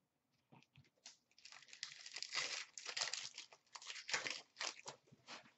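Wrapper of a 2016-17 Upper Deck SP Authentic hockey card pack being torn open and crinkled by hand: irregular crackling that starts about a second and a half in.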